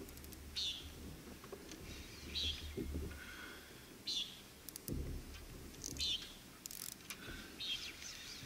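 A bird calling repeatedly, five short, slightly falling calls about every second and a half to two seconds, over a faint low rumble.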